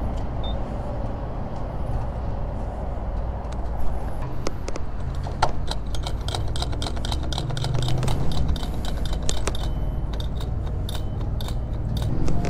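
Motorcycle being filled at a gas pump: a steady low hum under the fuel flowing through the nozzle into the tank, with clicks and rattles from the nozzle and fuel filler that come thick and fast from about halfway through.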